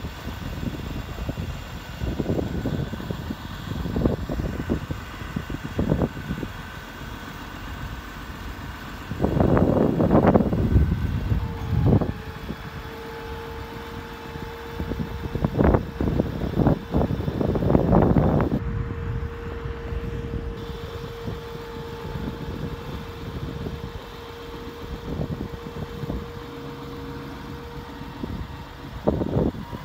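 Cummins diesel engine of a Sterling 5500 bucket truck idling with the PTO engaged, driving the hydraulics while the aerial boom is raised. A steady whine comes in about a third of the way through and holds until near the end, with louder irregular rumbling surges in between.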